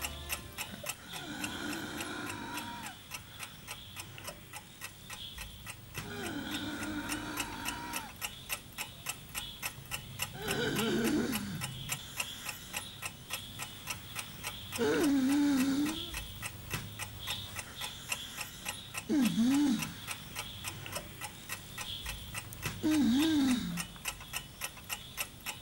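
Table alarm clock ticking steadily, about two ticks a second. Over it come six drawn-out vocal sounds from a person, wavering in pitch, the last three louder.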